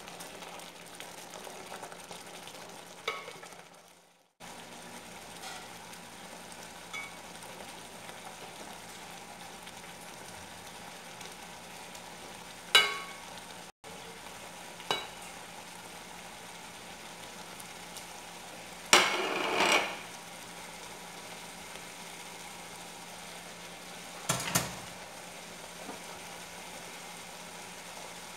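Pot of chicken and broth simmering with a steady sizzling hiss on an electric stove. A wooden spoon knocks against the pot several times, with a longer scraping stir near the middle. The sound cuts out briefly twice.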